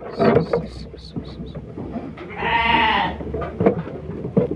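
A sheep with a deep leg wound bleats once, a wavering call of just under a second about halfway in. Light clicks from handling come before it.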